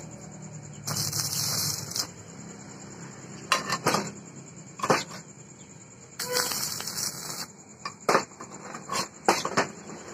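Stick (MMA) arc welding with an inverter welder: two short bursts of arc crackle, about a second in and again around six seconds in, with sharp metal clicks and knocks between them as the steel pieces are handled on the bench.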